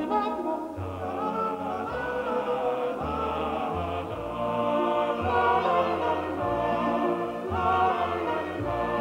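Orchestral music with singing in an operatic style, over sustained bass notes that change every second or so.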